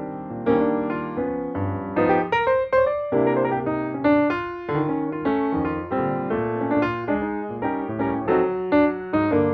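Background piano music, gentle notes struck one after another with a slow decay.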